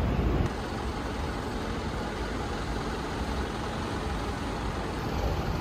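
City street traffic noise: a steady rumble of engines from passing vehicles. A louder low rumble cuts off about half a second in.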